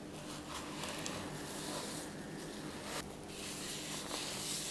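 Ground rock salt being sprinkled and rubbed by a gloved hand over a slab of raw beef on a plastic tray: soft, irregular rustling and scraping, over a low steady hum.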